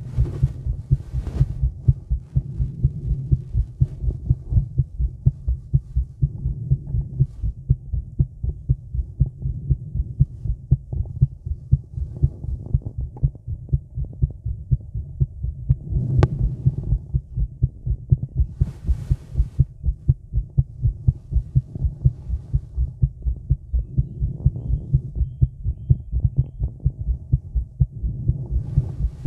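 A woman's heartbeat picked up by a microphone on her chest: a steady, regular run of low lub-dub thumps. About two-thirds of the way through there is a brief scratchy noise.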